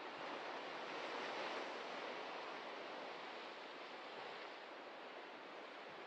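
Ocean surf washing on the shore, a steady rush that swells about a second in and then slowly eases off.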